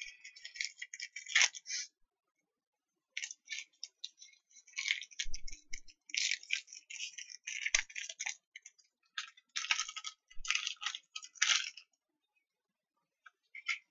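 Crinkling and rustling of a foil Pokémon TCG booster pack wrapper being handled, in irregular bursts with a short pause about two seconds in.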